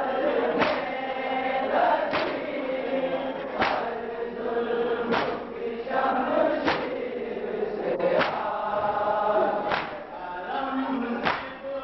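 A group of men chanting a noha (Shia lament) together, led by a reciter at a microphone. A sharp unison chest-beat (matam) lands about every one and a half seconds, keeping time with the chant.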